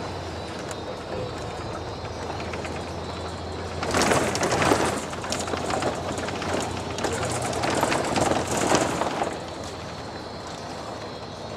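Steady low hum of a car driving on city streets, heard from inside. From about four seconds in to about nine seconds in there is a louder, rushing, crackling noise.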